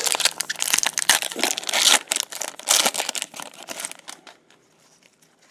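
Plastic wrapper of a pack of baseball cards crinkling and rustling as it is handled and opened, for about four seconds, then stopping.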